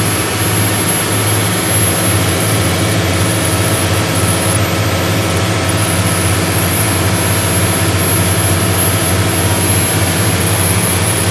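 Volvo Penta TAMD74EDC turbocharged marine diesel engines running steadily with the boat under way, heard loud and close through the open engine hatch, over a steady rush of noise.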